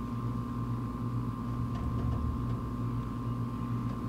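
A steady mechanical hum with a low droning tone. About two seconds in come a few faint clicks as a plastic water bottle is handled and tied on with string.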